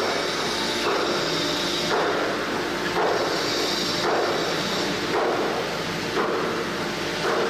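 ATC CNC router running, its spindle giving a steady tone under a rough machining noise that swells about once a second.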